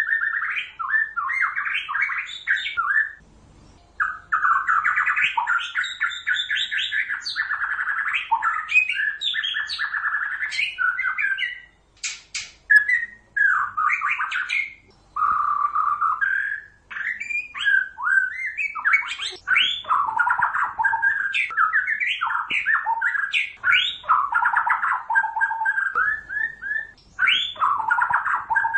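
White-rumped shama singing: a long, varied run of quickly changing whistled phrases and chattering notes, broken by short pauses, with a few sharp clicks about twelve seconds in.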